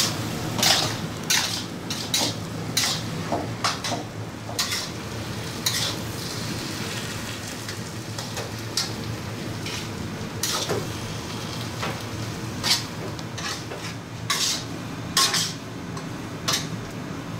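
A metal spatula scraping and clinking against a black iron pot as thick mashed-potato masala is stirred and turned over the heat, in irregular strokes one or two a second. A steady low hum runs underneath.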